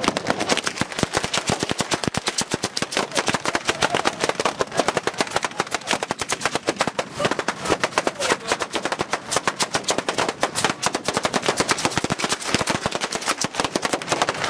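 Italian street batteria: a long chain of ground firecrackers going off in rapid succession, about eight to ten sharp bangs a second in an unbroken run.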